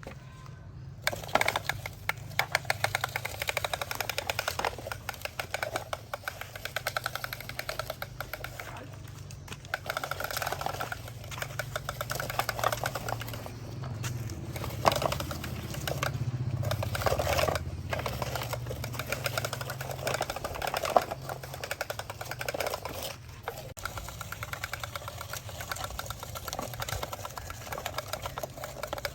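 Small electric motors and plastic gearboxes of radio-controlled toy construction vehicles running, a rapid buzzing whir over a low hum that swells and eases.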